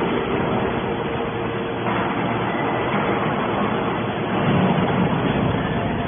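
Hydraulic scrap metal baler running: a steady machine hum and rush from its hydraulic power unit, growing louder for about a second from four seconds in.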